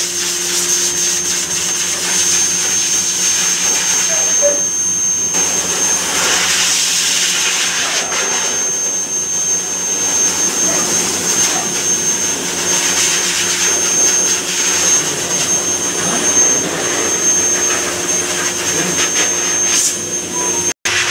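Pet grooming blower dryer running steadily, blasting air through its hose onto a wet dog's coat, with a steady high whine over the rush of air. The sound breaks off for an instant near the end.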